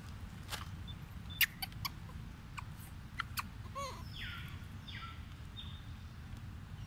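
Outdoor ambience with a steady low rumble, a scatter of sharp clicks in the first few seconds, and one short curved animal chirp about four seconds in, followed by a brief raspy hiss.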